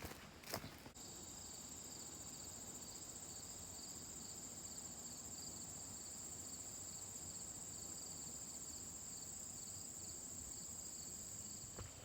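Steady, high-pitched insect chorus with a quickly pulsing trill beneath it, starting abruptly about a second in, after a couple of footsteps.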